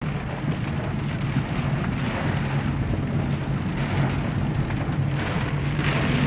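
Heavy rain falling on a car's roof and windshield in a storm, a steady hiss, with a steady low hum of the car underneath.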